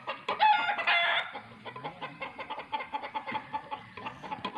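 A rooster crows once, briefly, about half a second in, over steady chicken clucking.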